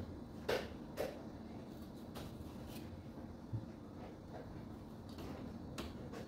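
Sharp plastic clicks and light knocks as hands handle the edge of an opened LED TV's LCD panel and its frame: two louder clicks in the first second, a few fainter ones later.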